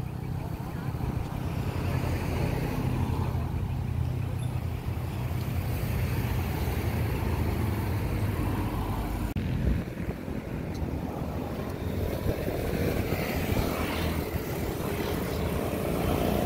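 Wind buffeting the microphone outdoors: a steady, rough low rumble.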